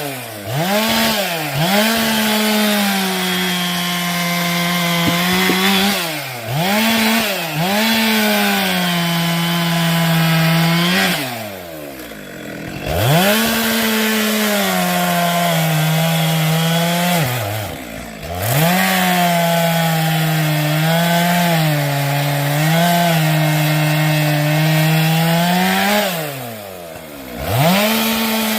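Chainsaw cutting firewood. The engine revs up and holds at full speed while cutting, its pitch sagging slightly under load. It drops back to idle about eight times, with longer pauses about 12 seconds in and near the end.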